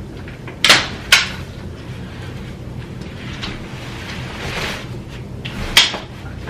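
Uppababy G-Luxe stroller being folded: sharp clicks of the frame's latches and joints, two close together about a second in and one more near the end, with a softer sliding rustle between them.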